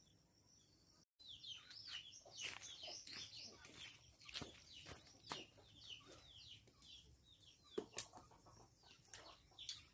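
Birds chirping: many short, high, falling chirps in quick succession, with clucks from chickens and several sharp clicks, the loudest two close together about eight seconds in.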